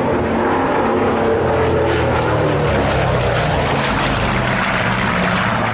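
Grumman F7F Tigercat's twin Pratt & Whitney R-2800 radial engines in a low fly-by, a loud steady propeller drone whose pitch eases down over the first couple of seconds.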